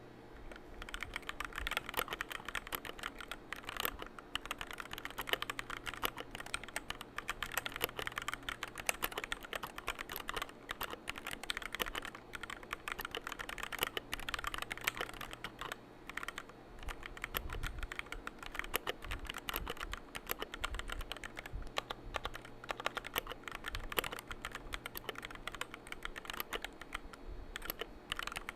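Typing on a Zeta 68 Pro mechanical keyboard fitted with pre-lubed Gateron Red linear switches and silicone dampening: a continuous run of quick keystrokes, with a short pause about halfway. It is a sound test of the board, and the keystrokes are smooth-sounding.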